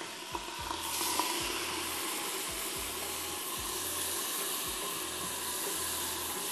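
Browned chopped onions frying in hot oil, the sizzle jumping to a loud, steady steamy hiss about a second in as ginger-garlic paste and water go into the hot pot.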